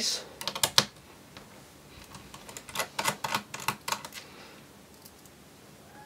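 Light, quick clicks and taps from a small Phillips screwdriver and screws on a laptop's plastic base panel as its screws are undone. The clicks come in a short cluster at the start and another around the middle.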